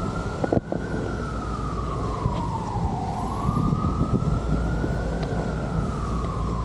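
Emergency vehicle siren wailing, its pitch rising and falling slowly about every four to five seconds over a low background rumble. A couple of sharp clicks sound near the start.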